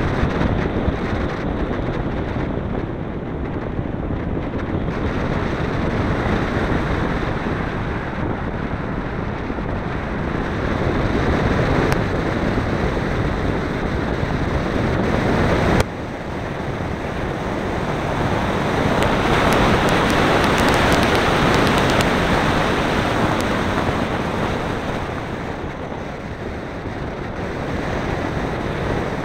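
Airflow rushing over the microphone of a camera mounted on an RC glider in flight, a steady wind roar that swells and eases with airspeed. It drops abruptly about halfway through, then builds again.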